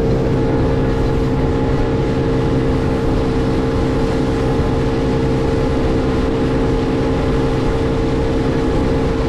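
Evinrude 150 outboard motor running steadily with the boat on plane, a constant engine hum over the rush of water from the hull and wake.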